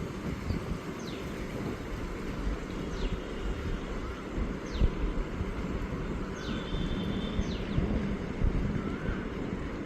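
Outdoor ambience: a steady low rumble with occasional bumps, and a small bird giving thin, quickly falling chirps about every one to two seconds.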